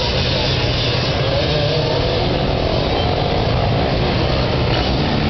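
Many enduro motorcycle engines running and revving together, a steady mass of engine noise with individual pitches rising and falling.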